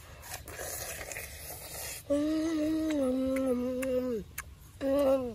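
A boy biting and chewing juicy fruit, then a long hummed "mmm" of enjoyment about two seconds in, sinking a little in pitch, and a short second "mmm" near the end.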